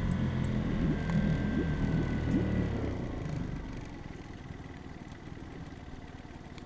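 2017 Yamaha four-stroke outboard motor running just after a cold start, its sound dropping over the first three or four seconds and then settling at a quieter, steady level.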